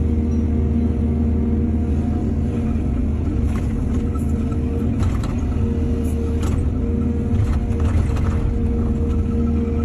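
Excavator's diesel engine running steadily under load, with a run of sharp knocks and rattles from about three and a half to eight and a half seconds in.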